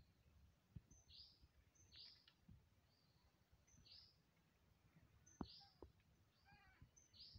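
Faint bird calls: short high chirps, each dropping in pitch, repeating every second or so, with a couple of soft clicks about halfway through.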